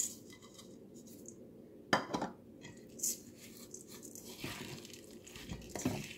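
Rolled oats tipped from a plastic measuring cup into a stainless steel bowl of ground beef, then stirred in with a plastic spoon: quiet scraping and rustling, with a few sharp knocks of the cup and spoon against the bowl.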